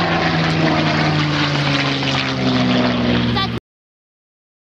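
Supermarine Spitfire flying overhead, its Rolls-Royce V12 engine and propeller running steadily. The sound cuts off suddenly to dead silence about three and a half seconds in.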